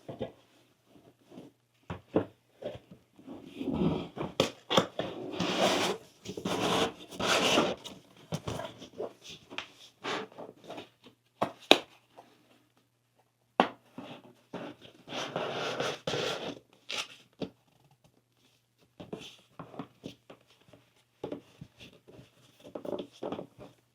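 A box and its packaging being handled: irregular scraping and rustling with many sharp clicks and knocks, in two busier spells with quieter gaps between.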